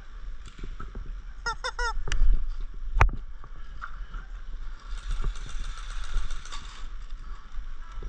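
A quick run of about five short honking bird calls about a second and a half in, followed by a single sharp crack about three seconds in. Footfalls and a burst of rustling brush fill the rest.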